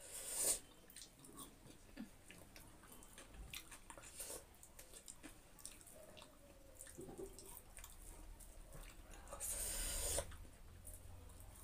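Close-miked eating sounds: fingers mixing and scooping food on a plate, with quiet chewing and small wet clicks. Two brief louder rustles, one at the start and one about ten seconds in.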